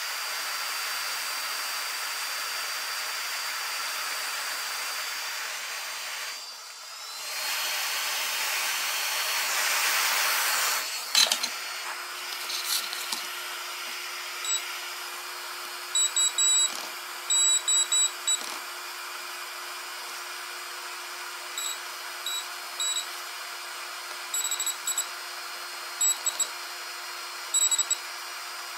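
Hot air rework station blowing steadily over the MOSFETs on a circuit board, with a faint high fan whine. The air dips around six seconds in, comes back stronger, then shuts off with a click about eleven seconds in. After that a multimeter's continuity tester gives short high beeps in irregular runs as its probes are touched to the board's pads.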